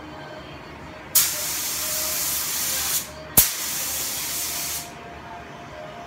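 Compressed-air gravity-feed paint spray gun spraying paint in two bursts: a hiss of about two seconds and then, after a short break, one of about a second and a half. Each burst starts sharply as the trigger is pulled.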